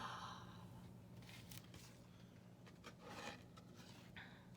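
Near silence: room tone with a faint steady hum. A breathy sigh fades out at the start, and a few faint soft rustles follow.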